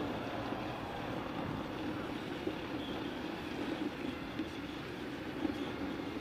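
Steady engine-like vehicle rumble.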